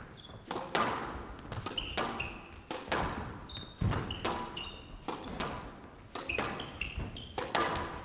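Squash rally: the ball cracking off rackets and the glass-walled court every half second to a second, each hit ringing briefly in the hall, with short high squeaks of players' shoes on the court floor between the hits.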